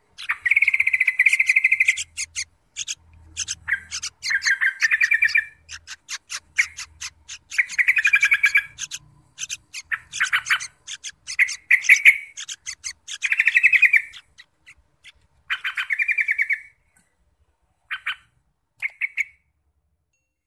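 Bulbuls (trucuk) at the nest giving a string of short, buzzy rasping calls, each under a second or so, with sharp ticking notes between them. The calls come less often and shorter near the end.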